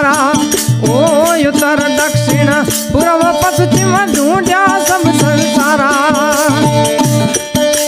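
Rajasthani folk music: wooden kartal clappers clicking a quick, steady rhythm over the steady drone of a plucked tandura, with a wavering melody line above.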